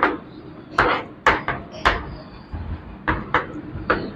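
Chalk writing on a blackboard: a run of sharp taps and short scrapes, about eight strokes at an uneven pace.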